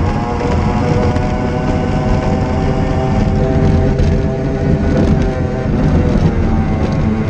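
Mercury outboard racing engine of a Formula Powerboat tunnel hull running hard at racing speed, heard from inside the cockpit under a heavy rush of wind and water; the engine note holds fairly steady with small rises and dips.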